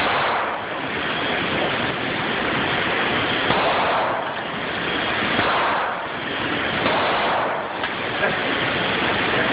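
Rushing wind buffeting a phone microphone, swelling and easing in gusts every second or two, with a few faint sharp pops.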